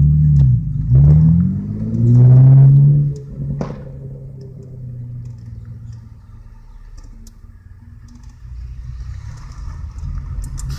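Straight-piped 3.6-litre V6 of a 2013 Chevrolet Camaro revving and accelerating hard away from a stop, heard from inside a following car. Two quick revs come first, then a long rising pull about two seconds in that cuts off a little after three seconds, leaving a lower, steady engine drone as the car moves off.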